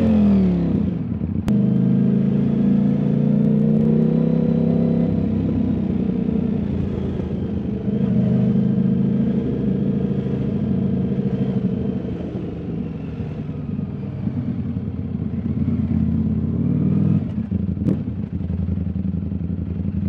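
Ducati Streetfighter V4's 1103 cc V4 engine running under way at low to moderate revs. Its pitch falls in the first second as the throttle closes, then holds roughly steady with small rises and falls. Two sharp clicks come, one about a second and a half in and one near the end.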